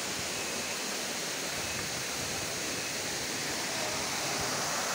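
Steady rushing of a jungle waterfall and its stream, growing slightly louder near the end.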